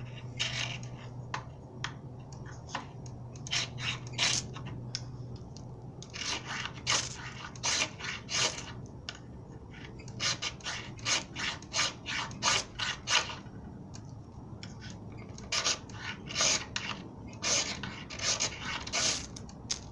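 Ferro rod being struck, likely with a knife spine: rapid rasping scrapes in bursts of several strokes, with short pauses between the bursts, over a low steady hum.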